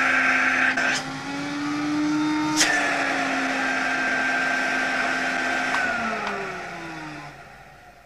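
Vacuum cleaner motor and two-stage fan running steadily. About a second in, with a click, the inlet is blocked and the pitch rises: the motor runs faster because the choked fan takes less power. After another click the pitch drops back, and from about six seconds in the motor slows and fades as it winds down.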